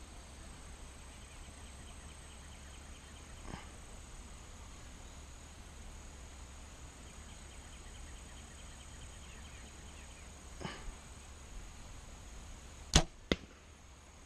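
A compound bow is shot: a sharp crack as the string releases near the end, then a fainter smack about a third of a second later as the arrow hits the target. Before the shot there is only a faint steady outdoor background.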